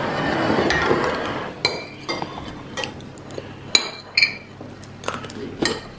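Metal spoon clinking and scraping against a porcelain soup plate as soup is eaten quickly, with a string of sharp separate clinks. A broad rushing noise fills the first two seconds.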